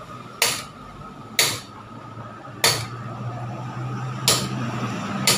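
Sharp metallic clinks, five of them spaced about a second apart, over a steady low hum.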